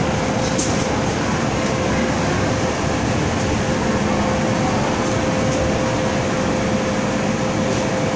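MTR M-Train standing at a platform with its doors open: a steady rush from its air conditioning and onboard equipment, with a constant high whine over it.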